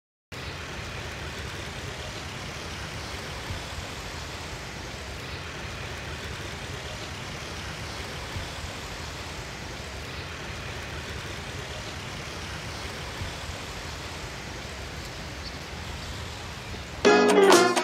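Steady outdoor background noise with a low hum of distant road traffic. Loud music with brass and guitar cuts in abruptly near the end.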